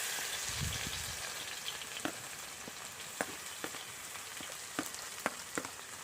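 Crushed garlic, ginger and curry leaves just dropped into hot coconut oil, sizzling steadily with sharp crackling pops, the sizzle slowly easing as the first moisture cooks off.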